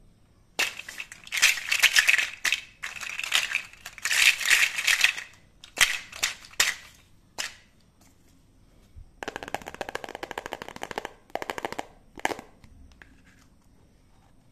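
Plastic rubbing and scraping on a wet plastic tablecloth: a run of crackly, squeaky scrapes through the first half. After a pause comes a rapid stuttering rattle as the plastic toy cutting board is dragged across the sheet, then a last short scrape.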